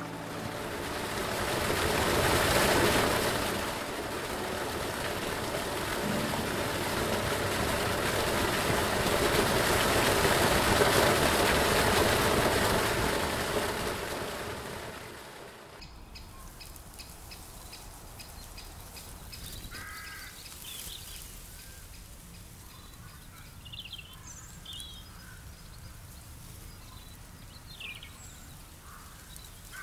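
Rushing water, a loud steady hiss that swells and fades and cuts off abruptly about halfway through. Quieter outdoor ambience follows, with birds chirping here and there.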